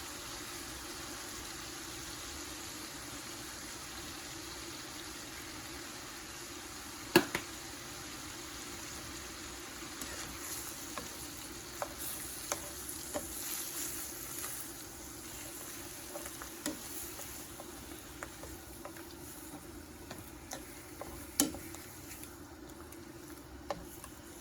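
Steady hiss of a covered pot steaming on the stove, with a few sharp knocks of kitchen utensils. The loudest knocks come about 7 s and 21 s in, with lighter clicks in between.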